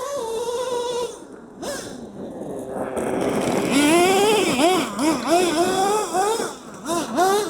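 Small nitro RC monster truck engine revving with a high, whining note. It holds a steady pitch at first, dips out briefly, climbs, then rises and falls in quick repeated swoops as the throttle is blipped. The engine is opening up but running slightly out of tune.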